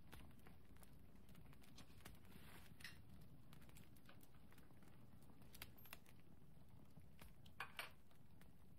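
Near silence: quiet room tone with a few faint scattered clicks, a pair of slightly louder ones near the end.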